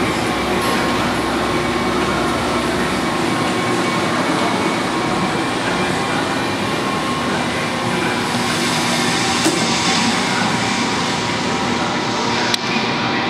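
Lodge & Shipley hollow-spindle engine lathe running, its headstock gearing and spindle giving a steady mechanical drone with a few faint steady tones. Two brief sharp clicks in the second half.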